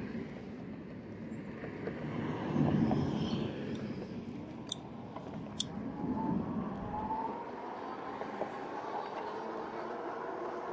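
Wind rumbling on the microphone of a moving 2018 RadMini e-bike. From about six seconds in, the bike's rear hub motor whines, rising steadily in pitch as the bike speeds up. Three sharp clicks come about a second apart around the middle.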